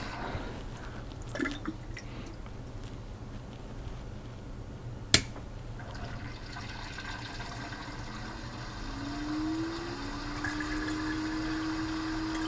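PC water-cooling pump circulating coolant through the loop, with air bubbles still trickling and gurgling in the system and pump. A sharp click about five seconds in; near the end a hum rises in pitch and then holds steady.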